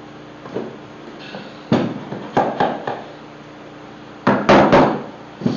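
Wooden table-leg pieces knocking together while being dry-fitted at their rabbet joints: a few sharp wooden knocks, coming in two quick groups of three in the second half.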